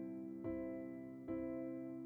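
Background music: slow, gentle chords, a new one struck about every second and left to fade.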